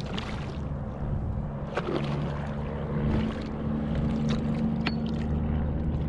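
A steady low drone like a distant motor, strengthening about two seconds in, with scattered light knocks and clicks.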